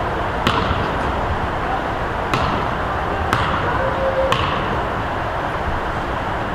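A basketball bouncing on a gym floor: four sharp bangs about a second apart, each echoing briefly in the hall, over a steady background of gym noise.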